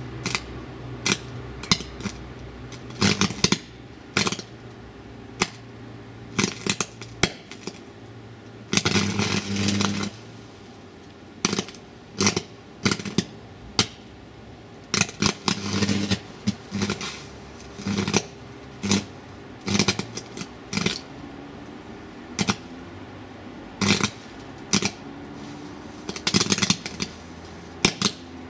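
Arc welder's electrode arcing on a router circuit board, burning into its chips: irregular crackling and sputtering bursts, a few held for about a second as a buzz. A steady low hum underlies the first ten seconds or so, then stops.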